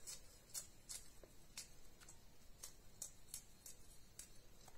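Faint, irregular light ticks and scrapes, two or three a second, of a spoon mixing chopped chives and green chillies in a stainless steel bowl.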